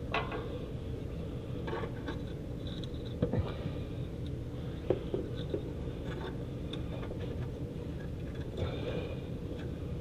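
Hands handling a plastic wiring connector at a frame-mounted module: scattered small clicks and scrapes over a steady low hum.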